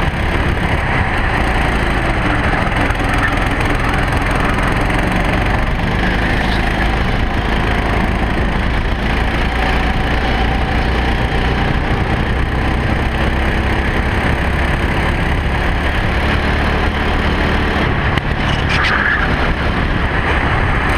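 Racing kart engine running hard at race pace, heard onboard over a steady rough rush of noise. Its pitch rises and falls with the throttle through the corners.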